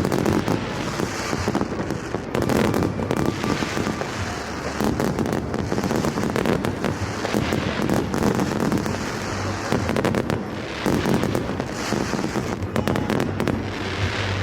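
Fireworks going off continuously: a dense run of overlapping bangs and crackling, with no pause.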